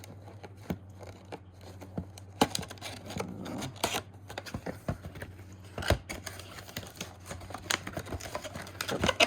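Cardboard toy box being opened by hand: irregular clicks, taps and short scraping and rustling of cardboard and packaging.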